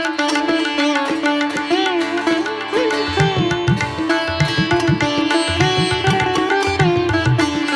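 Instrumental background music: a melody with sliding notes over a steady drone, with low drum strokes coming in about three seconds in.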